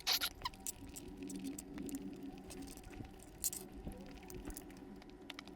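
Quiet eating and food-handling sounds: scattered small clicks and soft taps over a faint steady hum.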